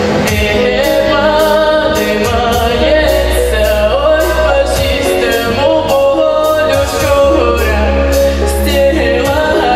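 A girl singing a pop song into a handheld microphone over a backing track with a steady drum beat and bass.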